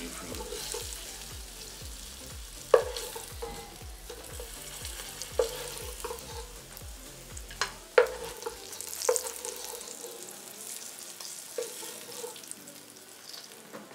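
Beef pieces sizzling as they fry in hot oil in a pot, the fat being fried out of them. A wooden spoon stirs and scoops the meat, knocking sharply against the pot about six times.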